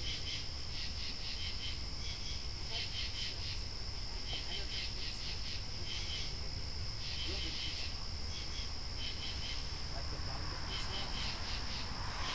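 Night-time insects calling: a steady high-pitched drone with short chirps in quick groups of two or three, repeating about once a second.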